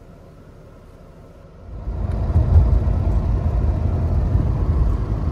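Inside the cabin of a Mercedes W124 saloon: a faint steady hum with the car at rest, then, about two seconds in, loud low engine and road rumble begins abruptly as the car is driven at around 70 km/h.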